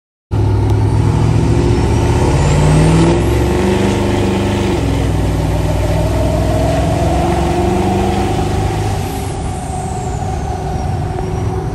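Diesel pickup truck engine running while driving, heard from the cab, starting abruptly. The engine pitch climbs and then drops in the first few seconds, and a slowly rising whine runs through the middle.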